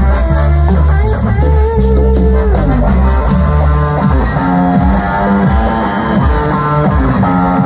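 Live cumbia band playing loudly: an electric guitar carrying the line over a steady bass and percussion.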